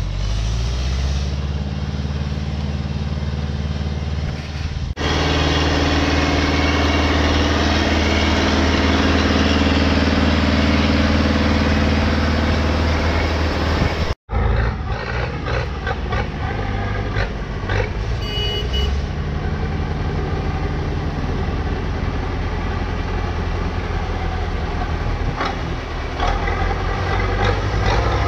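Farm tractor engine running under load while pulling a hop trailer through mud, a steady low drone that grows louder about a third of the way in. It cuts off abruptly about halfway through and comes back as a rougher mix of engine and machinery clatter.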